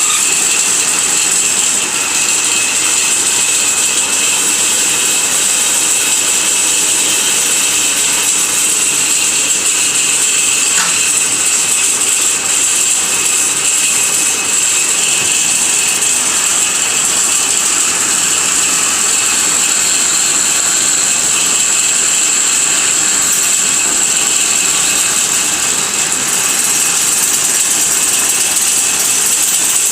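Automatic lathe running steadily: a continuous machine noise with a steady high whine.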